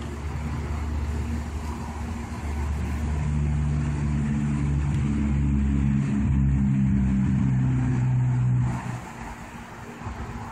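An engine running steadily with a low hum. It grows louder about three seconds in and stops abruptly near the end.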